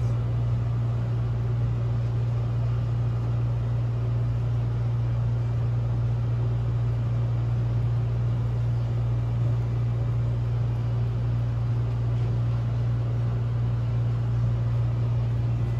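Steady low hum with a faint hiss, unchanging, like a running appliance or fan.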